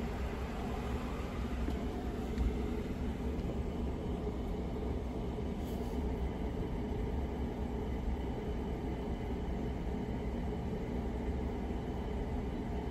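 Steady hum and rush of a classroom fish tank's running equipment, with a small bump about two and a half seconds in.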